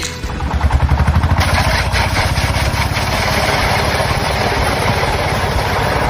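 A machine running with a fast, even pulsing beat, starting just after the beginning and growing fuller about a second and a half in.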